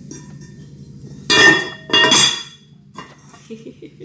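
A cookware lid being set down onto a pot: two sharp clinks about half a second apart, each ringing briefly.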